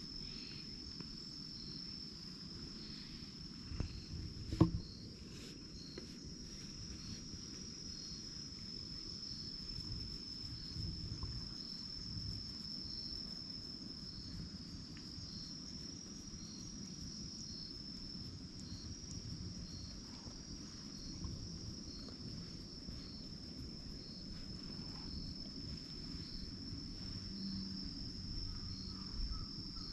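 Insects singing: a steady high drone with a fainter chirp repeating about once a second. A single sharp knock sounds about four and a half seconds in.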